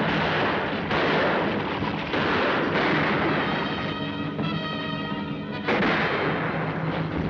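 Gunshots over the dense noise of galloping horses and a stagecoach, several sharp shots across the stretch, with orchestral chase music most prominent from about four seconds in.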